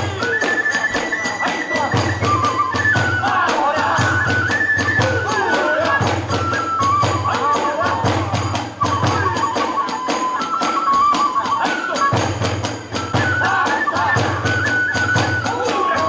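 Hiroshima kagura hayashi: a bamboo transverse flute (fue) playing a stepping melody over rapid, steady beats of the big drum (ōdaiko) and small drum (kodaiko) and the continuous clashing of the tebyōshi hand cymbals.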